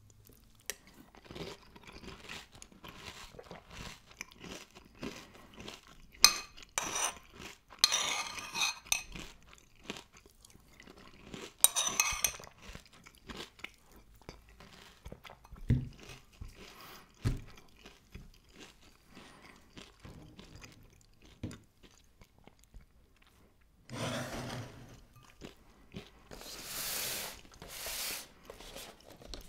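Chewing and crunching of crisp Cini Minis cinnamon cereal, a run of irregular crackles and clicks with a few louder noisy bursts near the end.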